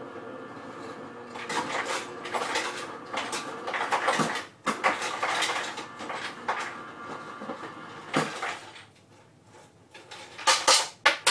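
Kitchen clatter of a cup and utensils being handled, irregular clinks and knocks, going quiet for a moment before a few loud sharp clacks near the end.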